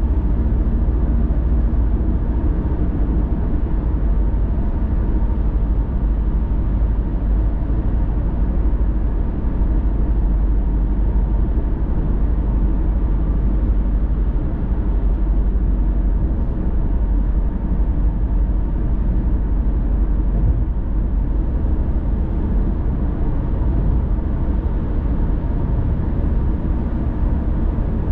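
A moving car's steady road noise: a low, even rumble of tyres and engine with no breaks or changes.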